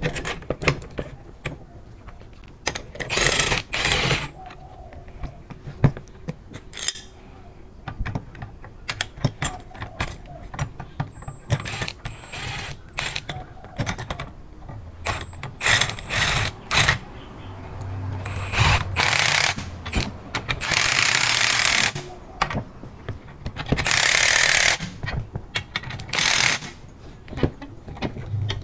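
Metal clicks and clanks of a two-piece hook coil spring compressor being fitted and handled on a car shock absorber's coil spring. There are four short bursts of a power tool, the longest about a second and a half, around two-thirds of the way in.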